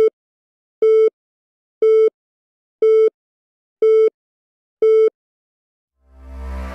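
Countdown beeps from a video intro: six short, identical electronic beeps about once a second, each a single steady mid-pitched tone. Near the end a rising whoosh with deep bass swells in, leading into music.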